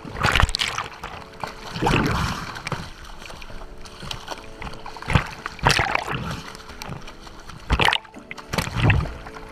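An Australian shepherd paddling at the sea surface, its splashing and sea water sloshing over a camera held at the waterline, with about half a dozen loud splashes.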